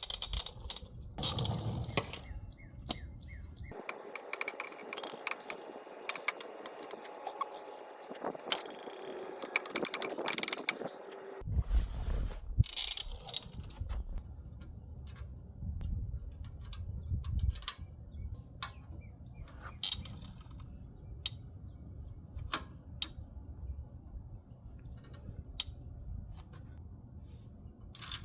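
Scattered clicks and clinks of hand tools and metal parts as a slip-on motorcycle muffler is fitted and screwed on.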